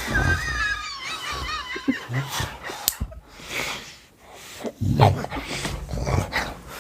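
A man's exaggerated fake snoring: rough snorts with high, wavering whistle-like tones between them.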